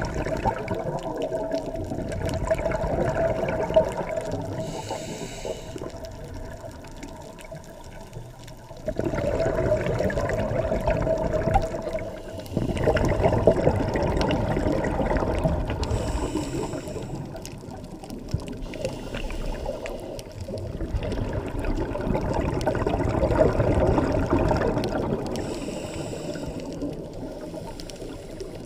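Scuba diver breathing underwater through a regulator: long bubbling rushes of exhaled air rise and fall several times, with short hissing inhalations between them. A steady tone runs underneath.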